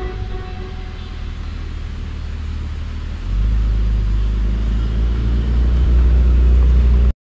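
A deep, steady low rumble that gets louder about three seconds in and cuts off abruptly near the end.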